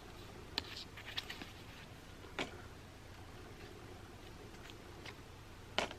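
Playing cards being handled and shifted one behind another in a hand-held deck, giving a few soft clicks and snaps of card stock: several in the first second and a half, one about two and a half seconds in, and the loudest shortly before the end.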